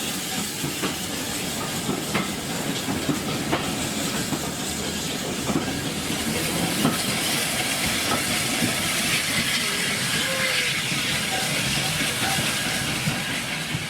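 Steam train running, with a steady steam hiss and scattered clicks and knocks from the wheels and carriages; the hiss grows stronger about halfway through.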